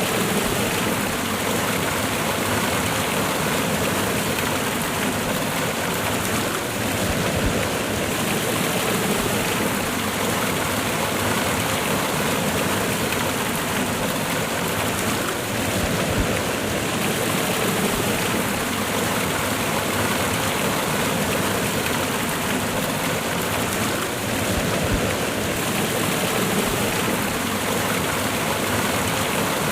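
Water of a cascading waterfall pouring and splashing in a steady, even rush.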